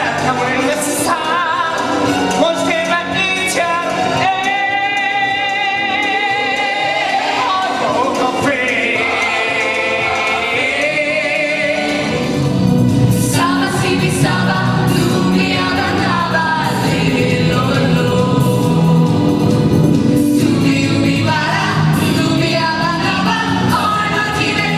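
Ensemble of voices singing a musical-theatre number with band accompaniment. About halfway through, the accompaniment grows fuller, with stronger bass and cymbal hits under the voices.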